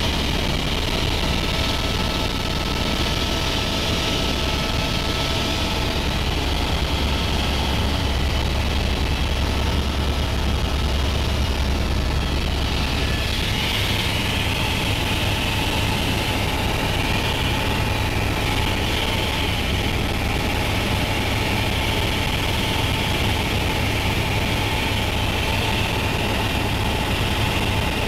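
Steady drone of a helicopter's engine and rotor heard from inside the cabin in flight: a deep hum under a broad rushing hiss. The deep hum shifts up a little in pitch about halfway through.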